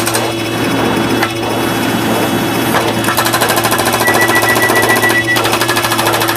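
A dense pile-up of cartoon and alert sound effects played rapidly over and over, giving a fast, even clattering rhythm over steady tones. A run of high beeps sounds briefly past the middle.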